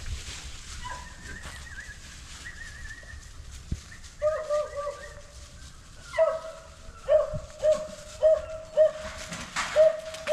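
Beagle puppy giving short, high-pitched yelping barks in a steady run of about two a second from about six seconds in, after some fainter whining. This is a young hound giving voice on first sight of a rabbit.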